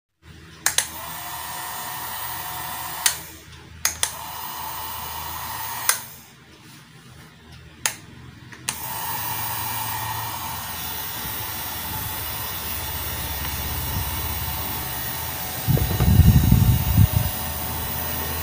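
Small G-MAX MX-658 hair dryer's fan motor, powered from a USB power bank, switched on and off several times with a sharp click at each switching, then left running steadily. Near the end there is a few seconds of low buffeting as a hand is held in the airstream at the nozzle.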